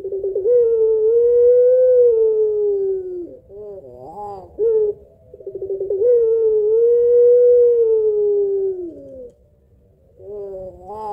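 Puter pelung, a domestic ringneck dove bred for its long song, cooing. Twice a fast stuttering start runs into one long held coo of about three seconds that swells slightly and sinks in pitch at the end, with short wavering notes between the calls and again near the end.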